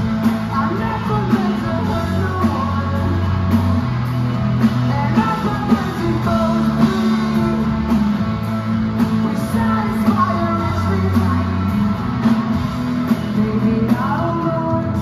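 Rock band playing live with no sung lyrics: distorted electric guitars, bass guitar and a drum kit keeping a steady beat.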